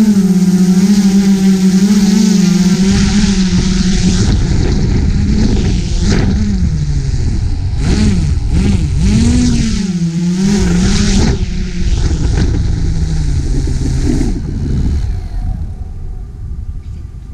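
GoPro Karma quadcopter's motors and propellers whining, recorded on board. The pitch swings up and down as the drone manoeuvres, with wind buffeting the microphone. Near the end the pitch drops and the whine fades as the motors spin down.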